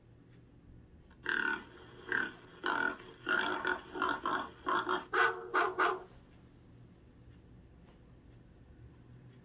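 Dachshund making a quick run of about ten short vocal sounds over some five seconds, which then stop.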